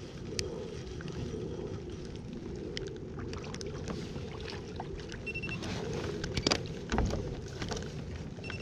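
Steady low rumble of wind and water around a kayak, with scattered small clicks and knocks from the reel and fishing gear as a crappie is reeled in. A sharper cluster of clicks and a heavier knock come about six and a half to seven seconds in as the fish comes up to the kayak.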